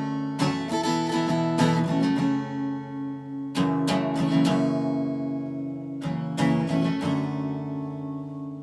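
Acoustic guitar strumming three short bursts of chords, each left to ring. The last chord, about seven seconds in, rings on and slowly fades away as the song ends.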